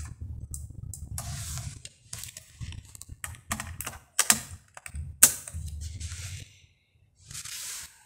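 Sharp plastic clicks and knocks as the detachable faceplate of a Pioneer DEH-6350SD car stereo is handled and snapped back onto the unit. It is an irregular string of clicks, the loudest about five seconds in.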